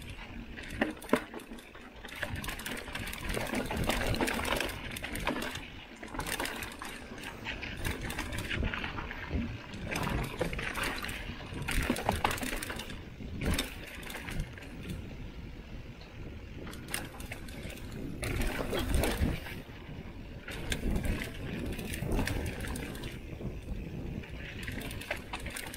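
Mountain bike riding down a rocky dirt trail: steady tyre noise on dirt with frequent knocks and rattles from the bike over rocks and bumps.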